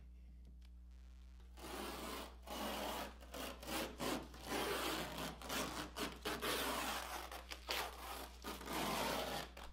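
Masking tape being peeled off a stained cedar-strip kayak hull: a ripping, tearing noise in uneven pulls with short breaks, starting about a second and a half in.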